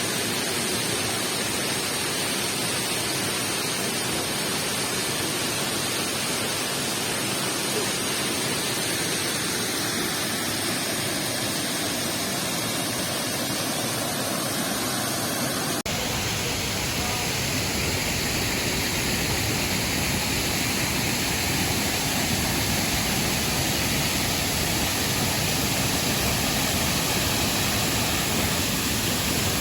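Waterfall rushing in a steady, even roar of falling water. About halfway through the sound changes abruptly to a fuller, deeper rush.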